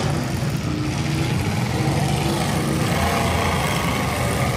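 V8 engines of demolition derby cars running together in a steady, loud mix.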